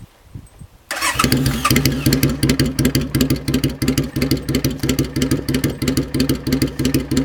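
Suzuki Intruder Classic 400 V-twin motorcycle engine starting about a second in and settling into a steady idle, loud through a 2-into-1 exhaust with no silencer, with even, regular exhaust pulses.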